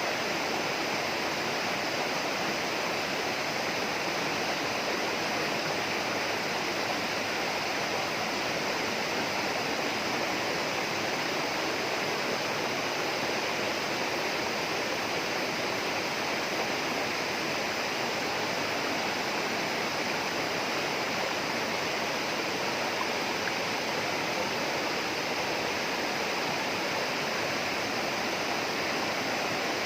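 Steady rushing water of a rainforest stream, running evenly without a break.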